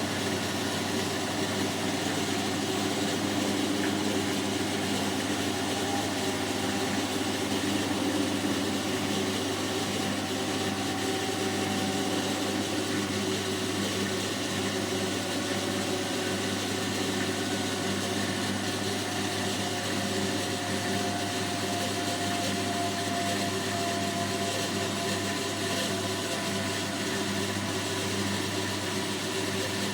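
Hotpoint NSWM 843C inverter-motor washing machine running with a steady hum and a whine that drifts slightly lower in pitch in the second half.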